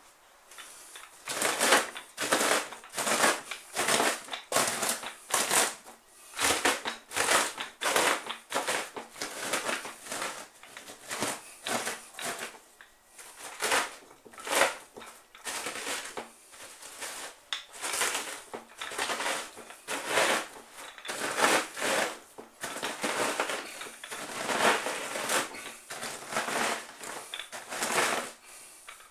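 Wooden rolling pin pressed and rolled over a cotton pillowcase full of hard, dried stale bread, crushing it into crumbs. The strokes come as a steady run of short crunches, roughly every half second or so, starting about a second in.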